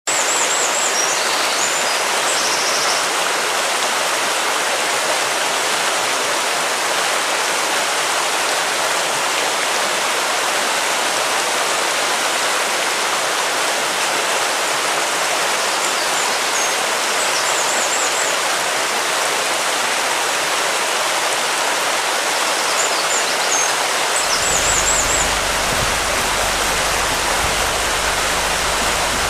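Steady rushing noise, with a few short groups of high chirps. A deeper rumble joins it about 24 seconds in.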